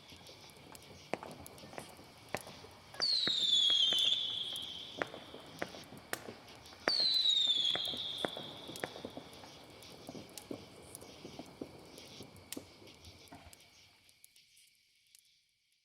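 Fireworks: two loud whistling bursts, about three and seven seconds in, each whistle falling in pitch, amid scattered crackling pops. A faint steady high tone runs underneath, and everything fades away near the end.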